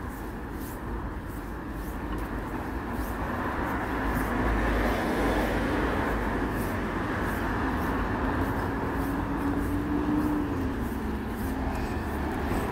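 Street traffic: a large vehicle's drone builds over the first few seconds and then holds steady, with a low hum that drops in pitch near the end.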